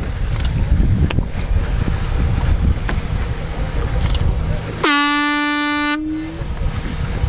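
Wind buffeting the microphone over a low boat rumble, then a single horn blast about five seconds in, one steady tone lasting about a second.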